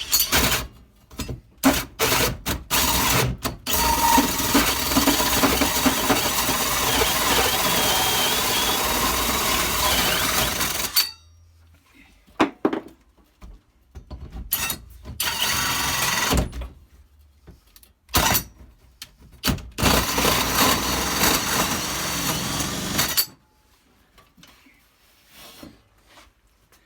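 Power drill running in short bursts, then one long run of about seven seconds, then a few more runs of one to three seconds each.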